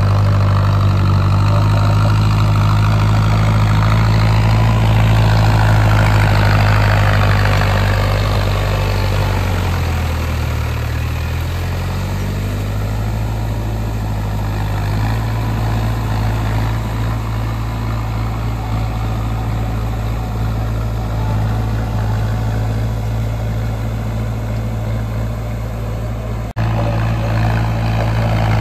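Mahindra 265 DI tractor's three-cylinder diesel engine running steadily while it pulls a puddler through a flooded paddy field. Its note dips and comes back up about ten seconds in, and the sound breaks off for an instant near the end.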